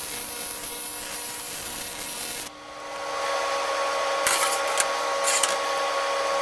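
TIG welding arc on an aluminum radiator tank, a steady hiss that cuts off abruptly about two and a half seconds in as the bung weld is finished. A steady hum carries on after it, with a few brief rustles a little past the middle.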